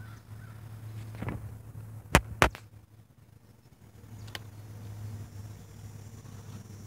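Vaterra Twin Hammers radio-controlled rock racer crawling over stones, with a steady low hum. Two sharp, loud knocks about a quarter second apart come a little over two seconds in, and fainter knocks come about a second in and near four and a half seconds.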